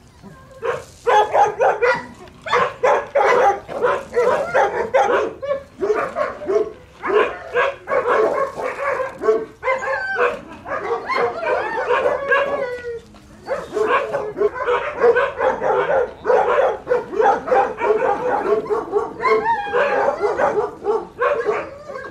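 A pack of dogs barking together, the barks overlapping in a dense, almost unbroken chorus with only brief lulls.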